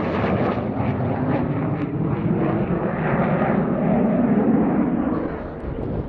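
F-15 fighter jet's twin engines roaring as it climbs away after takeoff, a continuous jet noise loudest about four seconds in and easing near the end.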